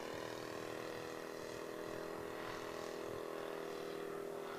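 Laser 180 four-stroke glow engine of a large radio-controlled Tiger Moth biplane model, running steadily in flight with its propeller, an even drone at constant pitch.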